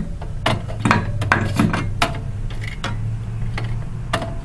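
A screwdriver driving a CPU heatsink mounting screw: light metal clicks and scrapes, about two a second.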